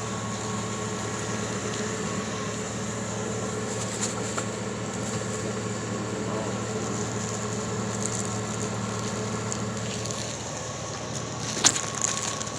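Steady, even machine hum with a few faint ticks, and one sharp knock near the end.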